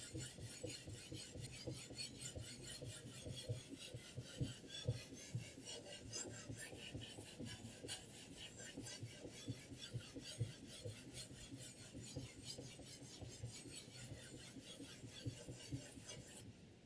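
Sharpening stone on a guided knife-sharpening system scraping along the edge of a 10Cr15CoMoV steel chef's knife in quick, even back-and-forth strokes, stopping just before the end.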